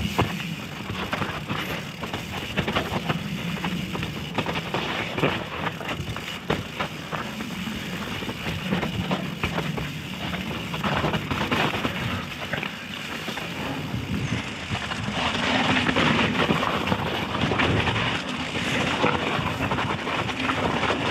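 Mountain bike ridden down a wet, muddy trail: tyres churning over mud and rock with a constant clatter of chain and frame. Wind rushing over the microphone grows louder in the last quarter as the bike picks up speed.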